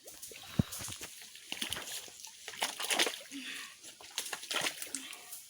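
Mud and water splashing and sloshing in a shallow muddy stream as the bed is dug out, with irregular scoops and a sharp knock about half a second in.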